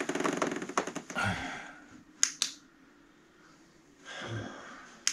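A run of crackling clicks, then a soft thump, two sharp clicks about two seconds in, another soft thump, and a sharp click at the end, in a small room.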